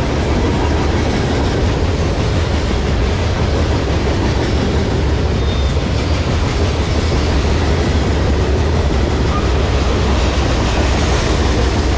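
Covered hopper cars of a CSX manifest freight train rolling past: a steady, loud noise of steel wheels running on the rails.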